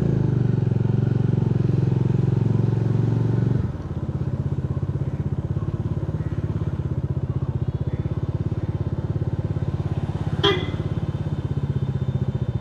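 Motorcycle engine running with a steady rapid pulse, dropping to a quieter, lower running a little over a third of the way in as the throttle eases off. A single short sharp click about ten seconds in.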